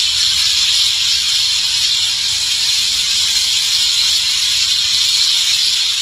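A large flock of birds in one tree, their many calls merging into a loud, steady, high-pitched chatter.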